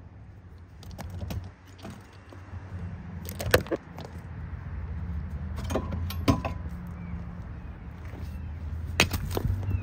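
Metal tools and strut parts clinking and knocking a handful of times over a steady low hum, during front strut removal.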